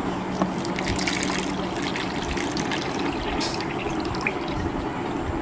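Water poured in a thin, steady stream from a copper lota into a plastic sampling bag, trickling as the bag fills with a drinking-water sample.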